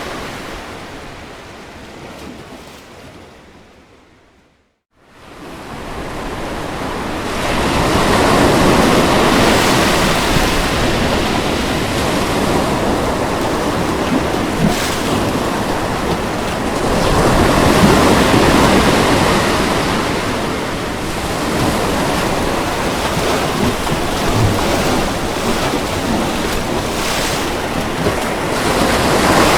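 Ocean waves washing onto a shore: a steady rush of surf that swells and eases every several seconds. About five seconds in, the sound fades briefly to silence, then fades back in.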